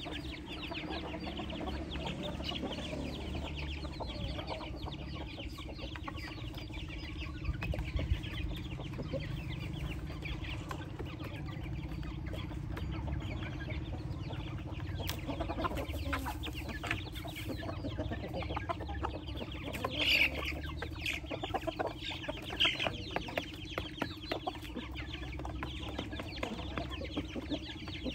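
A flock of chickens feeding: hens and roosters clucking while many chicks keep up a dense, continuous peeping, with a few louder calls about two-thirds of the way through.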